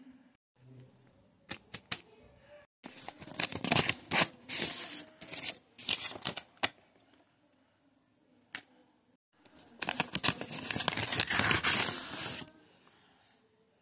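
Sheets of drawing paper being handled and moved about, rustling in two long spells, with a few sharp clicks in between.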